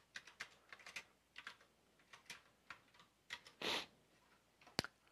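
Faint computer keyboard typing: quick, irregular runs of keystrokes, then a short rushing noise about three and a half seconds in and one sharp click near the end.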